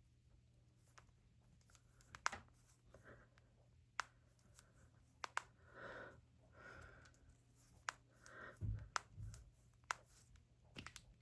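Knuckle and finger joints cracking: several sharp single pops a second or more apart, with soft breaths in between.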